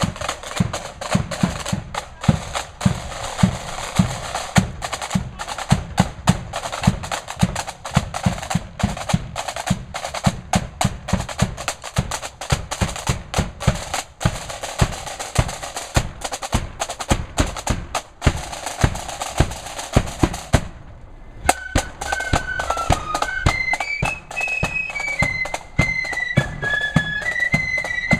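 Flute band's drum corps, snare and bass drums, playing a rapid beat. About three-quarters of the way through, the drums break off briefly, and then the flutes strike up a tune over the drums.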